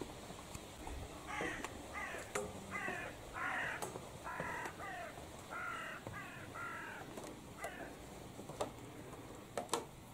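A crow cawing, a dozen or so short, harsh calls in quick succession, followed by a couple of sharp knocks near the end.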